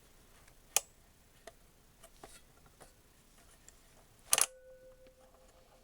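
Sharp clicks of the record player's controls being worked, the loudest about four seconds in, after which a steady whine starts up: motor noise coming through the player's audio.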